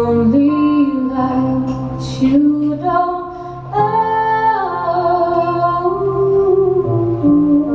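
Female singer holding long, drawn-out notes with vibrato, over sustained electric piano chords.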